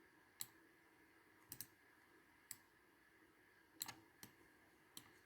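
Faint, scattered clicks of a computer mouse, about seven in all, a couple of them quick double-clicks, over a faint steady room hum.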